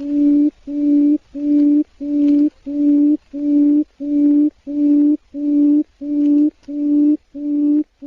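A low, flat-pitched tone pulsing on and off about twice a second, each pulse held steady for about half a second with abrupt starts and stops, like a beeper.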